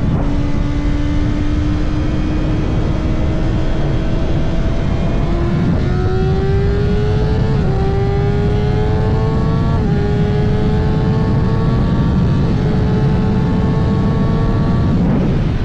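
Kawasaki ZX-6R's 636 cc inline-four engine running under way at steady revs, its pitch climbing slowly and dipping briefly three times in the second half, over heavy wind rush.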